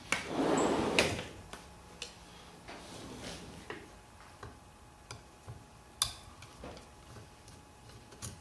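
Rustling handling noise, then light, irregular metal clicks and taps as a screwdriver works in a VW 34 PICT carburetor body to unscrew the emulsion tube jet, with a sharper click about six seconds in.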